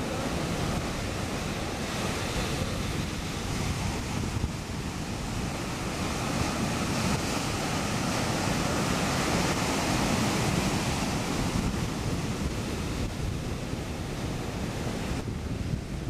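Ocean surf breaking in a rough, choppy sea: a continuous rushing wash of waves, swelling louder around the middle. Wind buffets the microphone.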